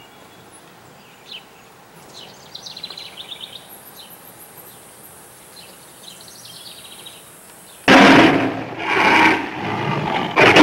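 Outdoor yard background with songbirds chirping, including a fast trill a few seconds in. About eight seconds in, a much louder sound cuts in suddenly and comes in repeated swells.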